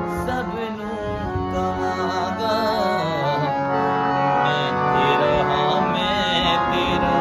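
Hand-pumped harmonium playing the melody of a worship song over sustained reed chords, with a wordless voice gliding and wavering above it in places.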